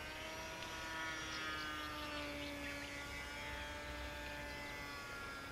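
Small electric RC plane's HK-AP05 brushless motor and GWS 5030 two-blade propeller buzzing steadily in flight, the pitch slowly falling. Birds chirp briefly midway.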